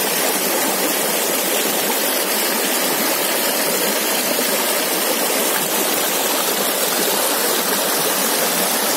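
Fast stream water rushing and splashing over rocks in a small cascade, a steady, loud rush.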